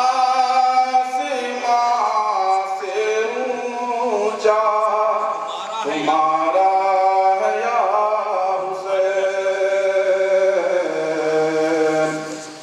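A solo man's voice, amplified through a microphone, chanting a devotional recitation in long, held melodic phrases with short breaks between them.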